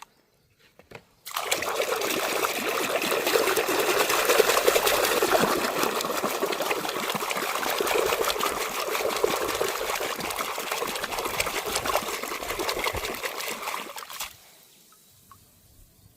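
Water running and splashing steadily for about thirteen seconds, starting about a second in and cutting off suddenly near the end.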